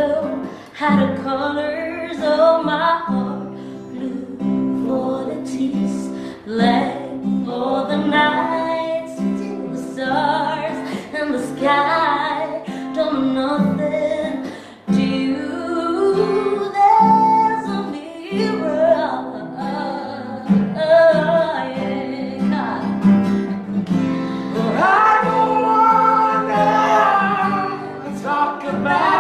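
A woman singing a ballad to acoustic guitar accompaniment.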